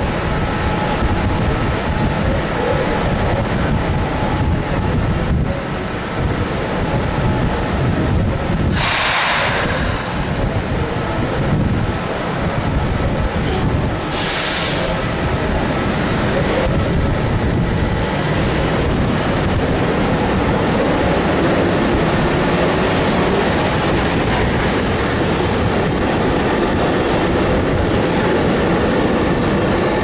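Long Island Rail Road electric multiple-unit trains (M-7 and M-3 cars) moving along the platform: a steady rumble of wheels on rail, with two brief high hisses about 9 and 14 seconds in.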